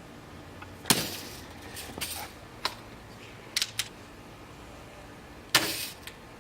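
Red Ryder lever-action BB gun fired at a watermelon: two sharp shots about four and a half seconds apart, with a few lighter clicks between them.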